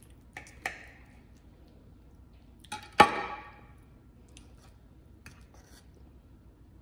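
Knife and fork clicking against a ceramic plate while cutting chicken, then a sharp clink with a short ring about three seconds in as the knife is set down on the plate.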